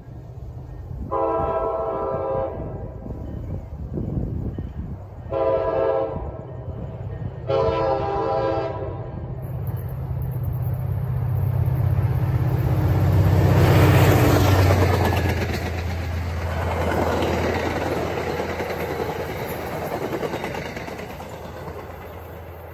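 A train's chime-type horn sounds three blasts: long, short, long. The train then passes close by, its low engine drone and wheel-on-rail noise building to a peak about halfway through and slowly fading.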